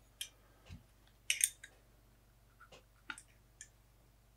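Handling noise from a plastic microphone shock mount being turned over in the hands: scattered light clicks and rattles, the loudest a short rattle about a second and a half in.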